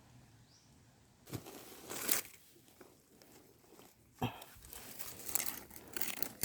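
Crackly rustling and crinkling of dry material being handled, in short bursts about a second in, around two seconds, and again from about four seconds on.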